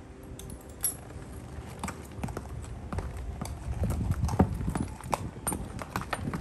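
A horse's hooves clopping on a concrete floor as it shifts its feet, in irregular strikes that come thicker from about two seconds in.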